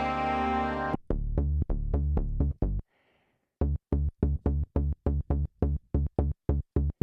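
Polymax software synthesizer playing Prophet-5-style patches. A sustained rich chord cuts off about a second in, then short, punchy bass notes follow. After a brief pause the notes resume as an even staccato run of about four a second.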